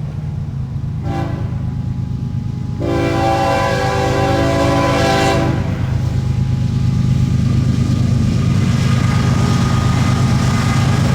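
Diesel locomotives of a CN freight train, led by a GE ES44AC, approaching with a steady engine rumble that grows louder after about six seconds. The lead locomotive's air horn gives a short toot about a second in, then a longer blast of about three seconds.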